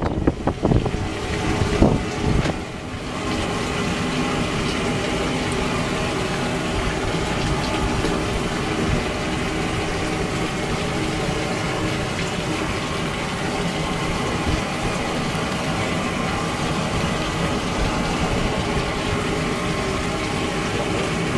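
Gusty wind noise on the microphone for the first few seconds. Then a steady mechanical hum with water running at a fish-cleaning table.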